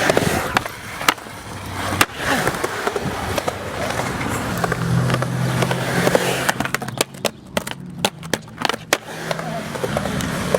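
Skateboard wheels rolling and rumbling over skatepark concrete, with sharp clacks and knocks of the board, several in quick succession in the second half.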